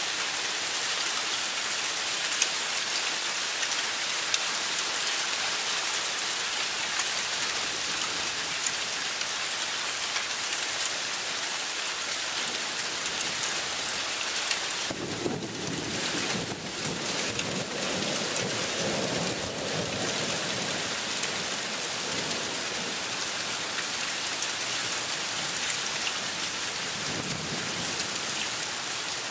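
Heavy rain pouring steadily in a severe thunderstorm. A long, low rumble of thunder comes about halfway through, and a fainter rumble comes near the end.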